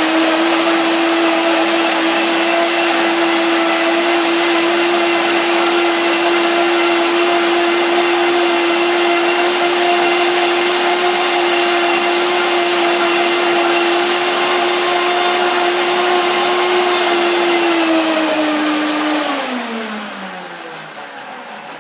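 Countertop blender running steadily, puréeing fresh and dried tomatoes, bell pepper and water into a dressing. About eighteen seconds in it is switched off and the motor's pitch falls away as it spins down.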